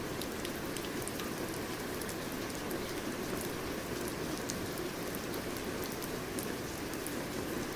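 Steady rain falling, with a continuous hiss and scattered sharp drops pattering on a surface.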